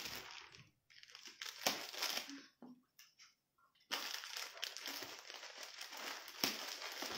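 Crinkling and rustling of a folded mekhela sador in its plastic wrapper being handled, in short bursts at first and then steadily from about four seconds in.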